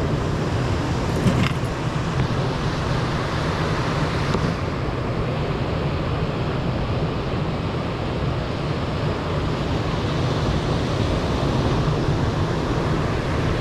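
Steady rush of breaking surf with wind buffeting the microphone, and a short knock about a second in.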